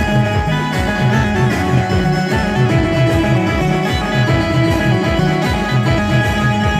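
A live Adivasi band playing timli dance music: a plucked-string melody over a steady, repeating bass beat.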